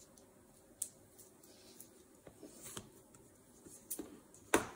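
Cardboard box being handled on a hard tabletop and a pair of scissors worked at its seal sticker: scattered light taps and rustles, with a sharp click near the end, the loudest sound.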